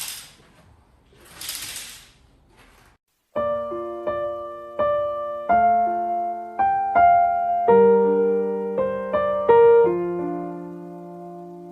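Two short hissing sounds, then solo piano music from about three seconds in, single notes struck one after another and left to ring.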